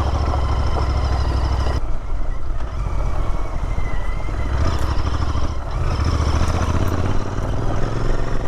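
Royal Enfield Interceptor 650's parallel-twin engine running on a dirt trail. The throttle eases off about two seconds in and opens again about six seconds in.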